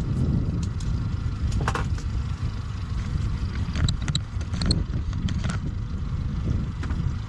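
Boat motor running with a steady low rumble, with a few short knocks and clicks of gear being handled on deck.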